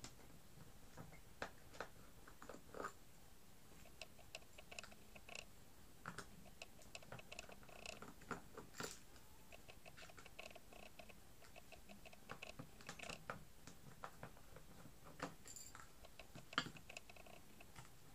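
Faint, irregular clicks and scrapes of a thin metal tool and fingertips prying and picking at the plastic casing of a solar garden light, with a sharper click near the end.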